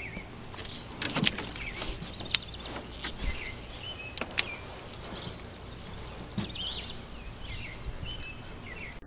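Songbirds chirping in many short calls, with a few sharp clicks and knocks.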